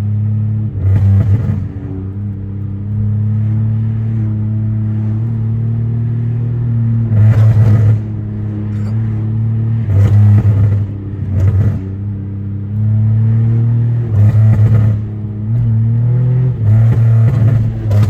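Pontiac Grand Prix GT's 3.8-litre V6 running through a catless exhaust, droning steadily at low speed. Several short, louder bursts break in, about a second in, around 7, 10, 11, 14 and 17 seconds.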